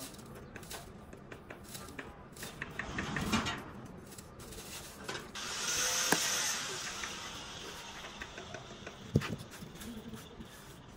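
Workshop tool sounds: scattered clicks and knocks, with a short hiss about six seconds in and a sharp knock a little after nine seconds.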